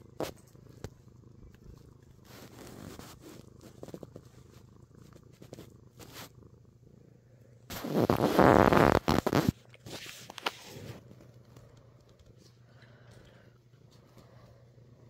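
Domestic tabby cat purring steadily while being stroked. A loud rustle of the phone being handled breaks in about eight seconds in and lasts a second and a half, with a smaller rustle just after.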